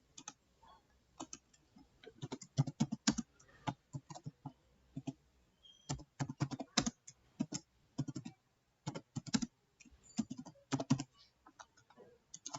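Computer keyboard typing in quick runs of keystrokes broken by short pauses.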